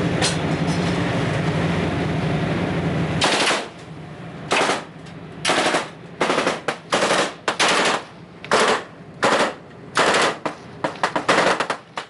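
Automatic rifle fire from the spy ship at the patrol vessel, recorded on the patrol vessel's deck. Steady loud noise with a low hum comes first; from a little over three seconds in, about a dozen short, sharp bursts of gunfire follow at uneven gaps, coming faster near the end.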